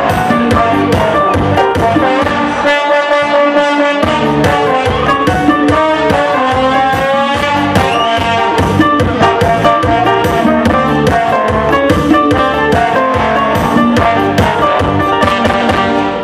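Lively band music led by brass, with a trombone prominent over a steady drum beat; it stops abruptly at the end.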